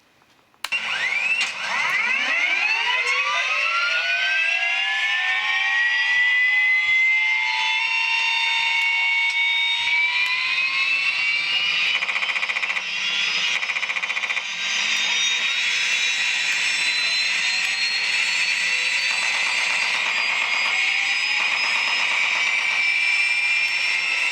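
TBS Mini model sound module playing a custom helicopter turbine start-up sound: a whine that starts suddenly about a second in, climbs steeply in pitch for several seconds, then settles into a steady high turbine whine that steps up once more partway through.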